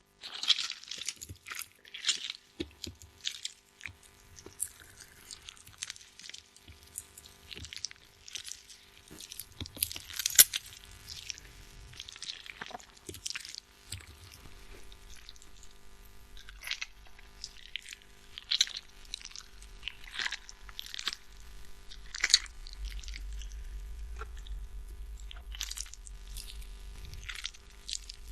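A tomato squeezed and crushed by hand, giving many short, irregular squishing crackles with small pauses between them.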